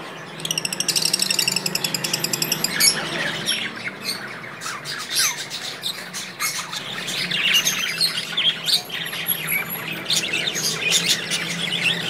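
Many caged budgerigars and lovebirds chirping and chattering together: a fast, even run of high chirps over the first three seconds, then a steady crowd of overlapping high chirps and squawks. A steady low hum runs underneath.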